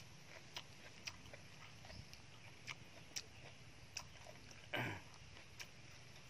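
Faint, scattered clicks of a person chewing and smacking their lips while eating by hand, with one louder, brief mouth noise about five seconds in.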